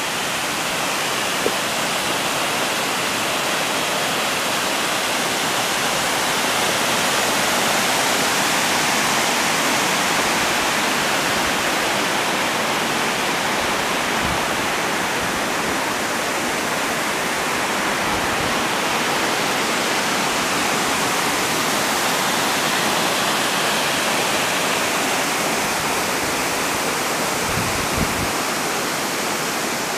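Water pouring over a small concrete weir and rushing down a shallow rocky stream: a loud, steady rush of water.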